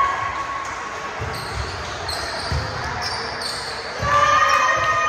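Volleyball play echoing in a large hardwood-floored gym: a few dull thuds of ball and feet in the first half, then players shouting about four seconds in.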